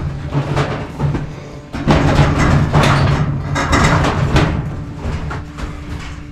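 Background music with heavy drum hits over a steady low bass.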